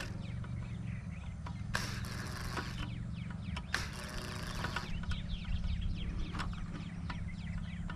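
Cordless drill driving a screw in, running in two bursts of about a second each, with a few clicks between.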